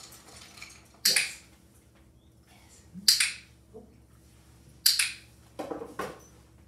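Three sharp clicks, about two seconds apart, as a training clicker marks a puppy's correct moves, followed near the end by a short clatter of light knocks.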